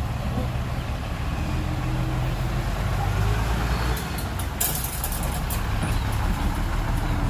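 Heavy diesel engine of earth-moving machinery running steadily with a low drone, and a brief sharp hiss of air about four and a half seconds in.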